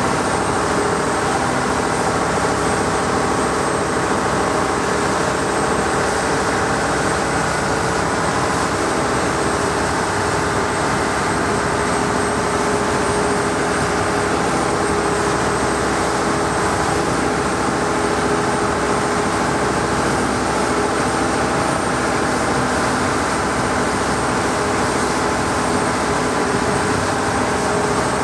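Thai longtail boat's engine running steadily at cruising speed: a loud, even drone with a rush of water and wind from the moving hull.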